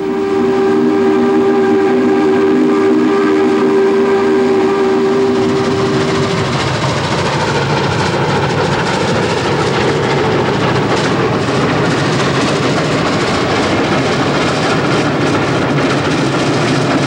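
Norfolk & Western 611's steam whistle blown in one long, steady chord of several tones, cut off about six and a half seconds in. Then the locomotive and train running at speed: a steady rushing noise with some rail clicks.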